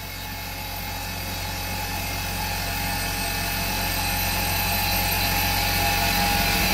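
Tormach 770 CNC mill face-milling aluminium stock dry with a Superfly fly cutter: a steady whirring cut with a chopping edge, growing steadily louder.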